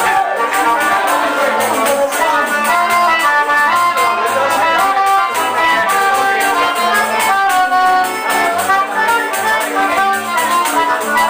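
Live forró band playing: an accordion carries a melody of short held notes over a steady, even drum and percussion beat, with guitar underneath.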